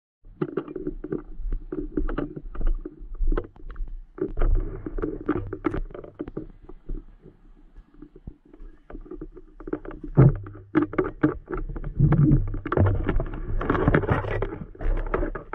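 Action camera being handled and carried: a dense run of irregular knocks, rubbing and rustling on its microphone over a low rumble, heaviest near the end.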